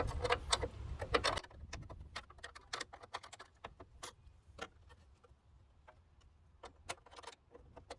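Scattered light metallic clicks and ticks of a ratcheting wrench and mounting bolts as a light bar bracket is tightened on. The clicks come densest in the first second and a half, then thin out to single irregular ticks.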